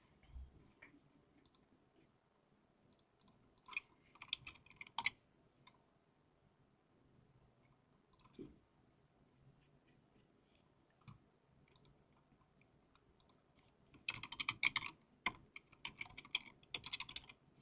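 Computer keyboard typing and clicking in two faint bursts, a short one about four seconds in and a longer, denser run from about fourteen seconds on.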